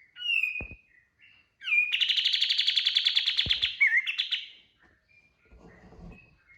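Kapas tembak songbird singing: a few short whistled chirps, then a loud, fast rattling burst of rapidly repeated notes lasting about two and a half seconds. These are the 'shots' (tembakan) of its song. Two soft low knocks and a brief rustle are also heard.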